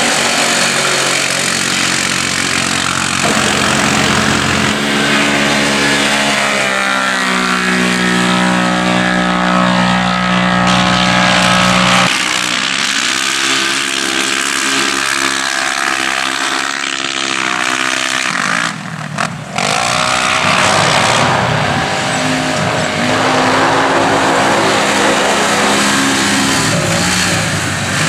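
Side-by-side UTV engines running hard as the machines race past and slide through turns on a dirt track. The pitch rises and falls as they accelerate and pass, and the sound changes abruptly twice.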